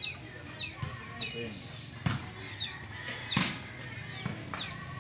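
Small birds chirping in quick, short, high calls throughout, with a few sharp knocks, the loudest about three and a half seconds in.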